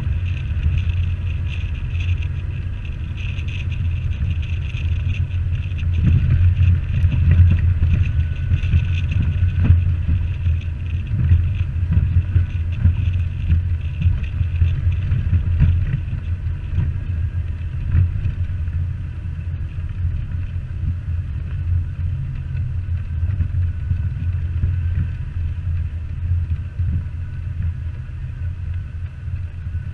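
Jeep engine running under way on an off-road trail, a steady low rumble with irregular knocks and jolts, most of them in the first half.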